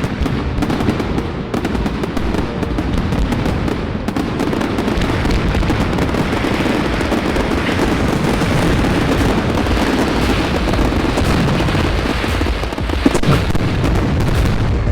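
Display fireworks going off in a dense, continuous barrage of overlapping bangs and crackles, typical of the finale of a fireworks display.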